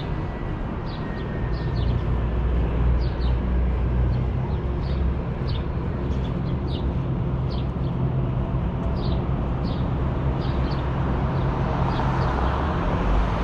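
Small birds chirping over and over, short high chirps every half second or so, above a steady low rumble that is the loudest sound.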